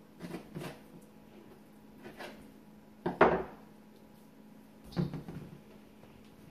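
Knife work on a plastic cutting board while cutting venison: a few short knocks and clatters, the loudest about three seconds in as a knife is laid down on the board. A faint steady hum lies underneath.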